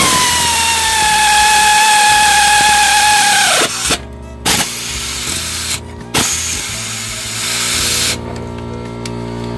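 Power ratchet run-tightening bolts. A first run of about three and a half seconds has a whine that sags in pitch as it takes up, then stops. Two short blips follow, then a second run of about two seconds.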